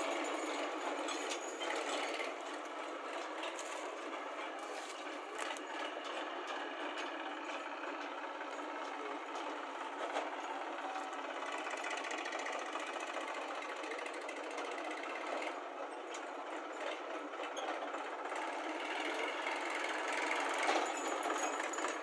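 Diesel engines of a Massey Ferguson 7250 DI tractor and a JCB backhoe loader running steadily with a clattering note as the tractor manoeuvres its trailer. A few short knocks come through.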